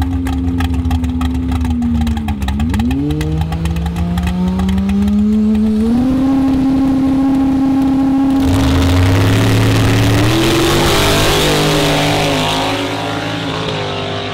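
Drag car at the start line, its engine idling with a pulsing beat and revving, then held at higher revs. About eight seconds in it launches with a loud burst of exhaust and tyre noise, the engine pitch climbing and dropping back as it shifts and fades away down the road.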